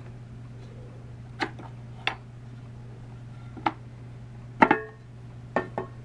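Bottom plate of a Hoover Convertible upright vacuum being worked loose and lifted off its base. It gives a series of about six sharp clicks and knocks, and the loudest one, about two-thirds through, has a brief metallic ring.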